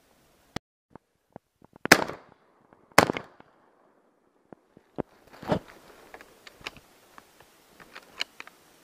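Two shotgun shots about a second apart, each with a short echo, then a softer bang a couple of seconds later and light clicks and rustling of gun handling.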